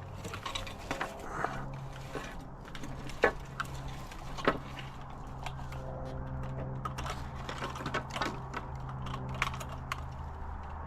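Metal clicking, rattling and knocking as a scrap air conditioner is worked on to get its motor out, with two sharper knocks a few seconds in, over a steady low hum.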